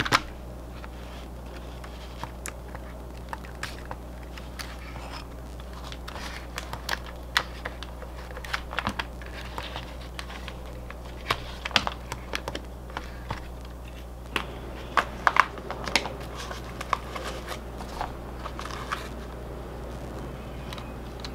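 Scattered clicks and taps of hands handling the plastic shell of Fat Shark Dominator V3 FPV goggles and pressing their buttons, thickest in the middle, over a steady low hum.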